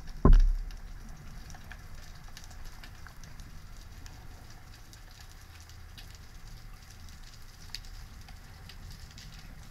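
Underwater sound picked up by a diving camera: a steady low rumble of water with faint scattered crackling clicks, after a short low thump just after the start.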